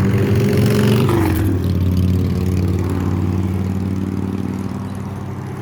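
Heavy diesel semi-truck engine running loudly as the truck goes by. Its pitch drops about a second in, then it slowly fades away.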